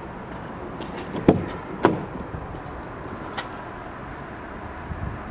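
Rear door of a Land Rover Discovery 3 being opened: two clunks of the handle and latch, about half a second apart, a little over a second in.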